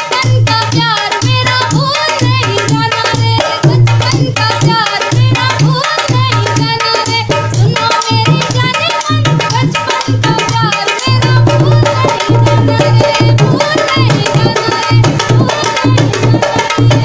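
Instrumental Indian folk-pop music: a dholak beats a steady, driving rhythm under a wavering melody line, with no words sung.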